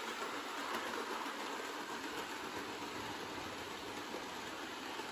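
Hornby class 370 APT OO-gauge model train running around tight second-radius train-set curves: a steady, even running noise from its motor and wheels on the track.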